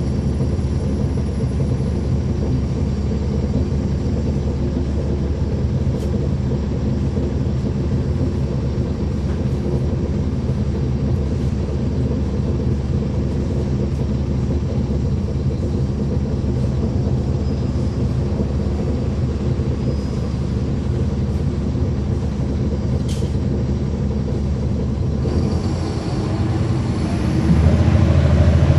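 Caterpillar C13 diesel engine of a 2009 NABI 40-foot transit bus, heard from on board and running with a steady low drone. Near the end it grows louder, as when the bus pulls away under power.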